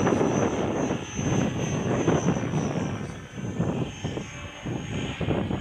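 Align T-Rex 550 electric RC helicopter flying aerobatics: a steady high motor whine over the whoosh of the rotor blades, which swells and fades repeatedly as it flips and turns.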